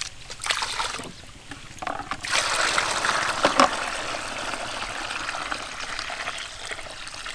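Rice being swished by hand in water in a stainless steel basin, then from about two seconds in the cloudy rinse water pouring off in a steady stream into a bucket.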